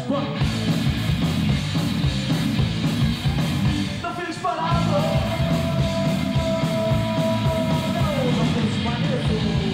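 Rock band playing live: electric guitars, bass and drums. About halfway through, a long held note comes in over the band and slides down in pitch near the end.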